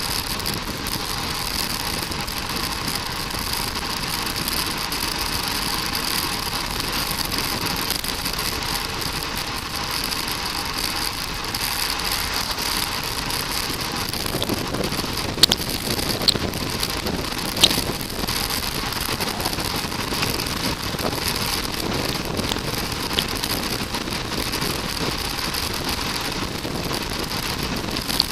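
Steady road and wind noise from a moving bicycle, with a few sharp clicks about halfway through.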